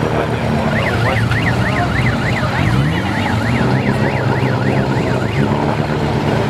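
Off-road 4x4 engines running, with one revving up near the middle. Over them an electronic siren sweeps rapidly up and down, about two and a half times a second, for several seconds starting about a second in.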